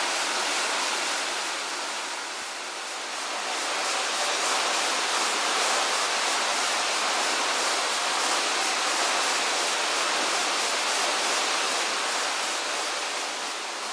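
Tanashita Fudō Falls' Odaki (male falls) pouring steadily: a continuous, even rush of falling water.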